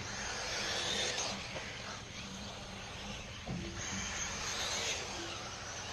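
1/8-scale electric RC buggies racing on a dirt track: the high whine of their brushless motors swells twice as cars pass, over steady background noise.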